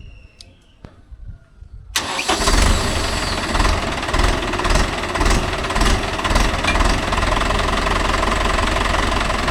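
Faint quiet, then a tractor's diesel engine comes in abruptly about two seconds in and runs steadily with a heavy low rumble.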